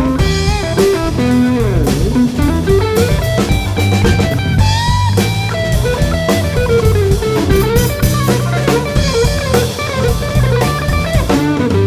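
Background music: a bluesy rock track with a guitar lead playing bent, sliding notes over bass and a drum kit.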